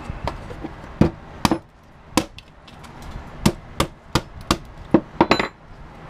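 A small plastic calculator being broken open: about ten sharp, irregular knocks and cracks as its case is struck and forced apart to get at the circuit board.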